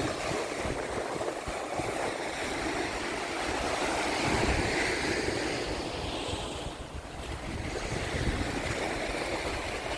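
Gulf surf washing onto the beach, a steady noisy wash that swells and eases, with wind buffeting the microphone.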